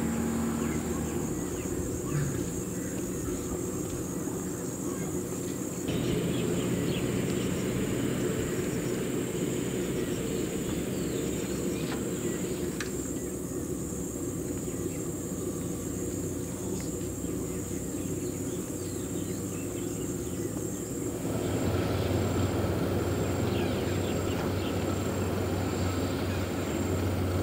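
Outdoor field ambience: a steady low rumble with faint insect chirping over it. The background noise changes abruptly three times.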